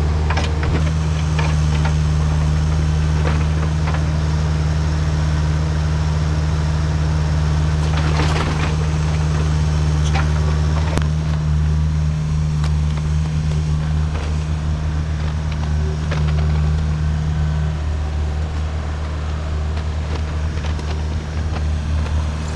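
Diesel engine of a compact Kubota work machine running steadily as it works, with a few sharp knocks from the work.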